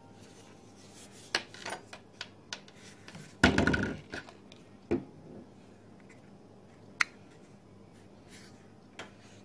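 Handling noises of small gadgets being moved on a tabletop: scattered light clicks and knocks, a louder scraping rub for about half a second a few seconds in, and a single sharp click about seven seconds in.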